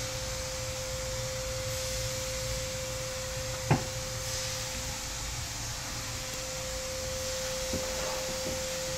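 Room tone: a steady whine held on one pitch over a low hum, with one sharp click a little under four seconds in and a faint tick near the end.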